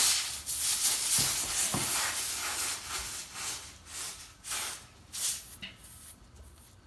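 Air hissing out of a punctured car tire through the freshly reamed hole, coming in uneven spurts that fade as the hole is worked on and partly blocked.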